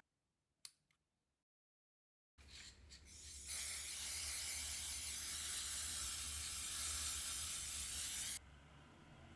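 A steady, loud hiss of air or spray lasting about five seconds, over a low hum, cutting off suddenly.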